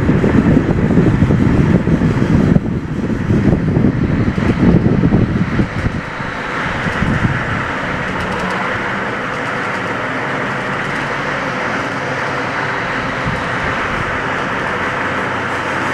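Drivetrain of a 1985 Ford F-250 4x4 with the 6.9 L diesel and T-19 four-speed manual transmission, running while slowing down in gear. It is loud and rough for about the first six seconds, then settles to a steady running noise. This is the weird squeaking on deceleration in gear that the owner puts down to the T-19 transmission.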